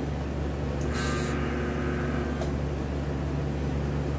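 Steady low machine hum, with a short hissing scrape about a second in and a faint click a little over two seconds in.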